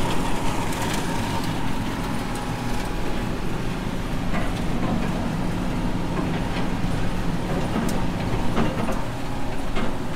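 Tractor engine running steadily, with scattered knocks and clatter.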